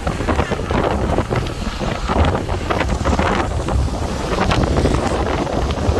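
Heavy wind buffeting the microphone aboard a moving boat, a steady loud rumble with irregular gusty thumps.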